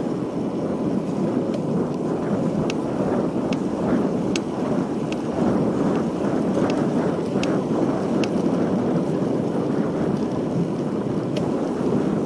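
Wind rushing over the microphone of a road bicycle in motion, with tyre hiss on wet asphalt. A faint sharp tick repeats roughly once a second through the middle of the ride.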